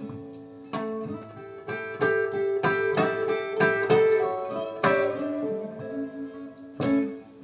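Acoustic blues guitar playing an instrumental run of picked notes between sung lines, played back over Harbeth 30.1 hi-fi speakers.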